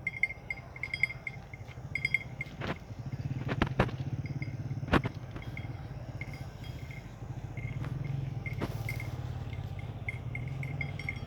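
An engine running steadily at a low idle, with insects chirping. A few sharp clicks come in the first five seconds.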